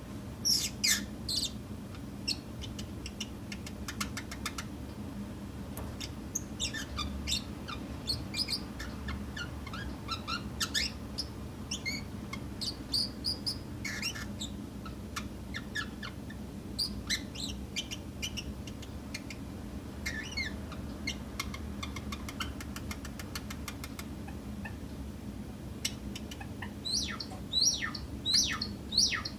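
Small cage birds giving short high chirps, scattered through, with a quicker run of chirps near the end, over a steady low hum.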